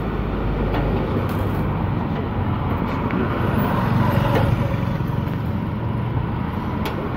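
Steady road traffic noise from vehicles passing on a busy road.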